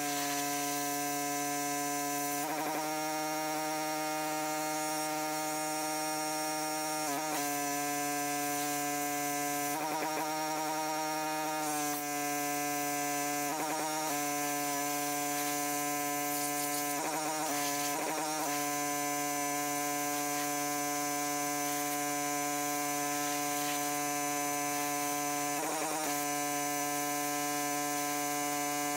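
Pressure washer running steadily with a strong, even buzzing drone; its pitch dips and wobbles briefly several times, around 2, 7, 10 to 12, 14, 17 to 18 and 26 seconds in.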